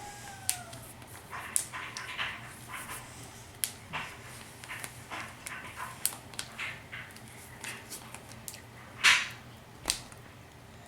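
Plastic packaging of a Kinder Joy egg crinkling and clicking in scattered bursts as it is worked open with difficulty. A short whine falls in pitch near the start, and there is a louder rustle about nine seconds in.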